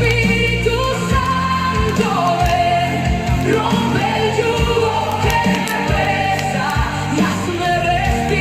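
Gospel worship music with sung vocals over a steady beat.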